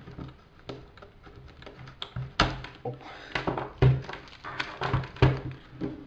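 Handling noise: a series of irregular clicks and knocks, a dozen or so, over a faint steady low hum.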